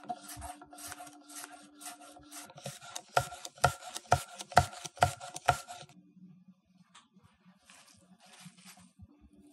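Chef's knife slicing a crisp green apple into matchsticks on a wooden cutting board: a quick run of crunchy cuts, each ending in a knock of the blade on the board, louder in the middle and stopping about six seconds in.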